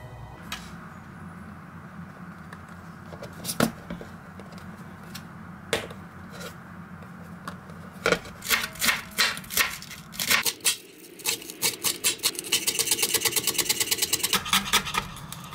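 Clicks and knocks of a plastic lunchbox lid being fitted and its vent cap pressed shut. About twelve seconds in, a chef's knife starts rapidly chopping cabbage on a cutting board, about five strokes a second. A steady low hum sits underneath in the first half.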